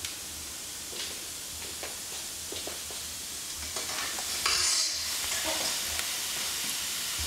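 Steady hiss of room tone through a non-professional camcorder microphone, with a few faint clicks and a short rustle about four and a half seconds in.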